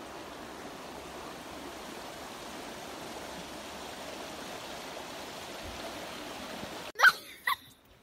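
The Hoh River rushing, a steady even noise. About seven seconds in it cuts off, and a child's voice sounds twice, short and loud.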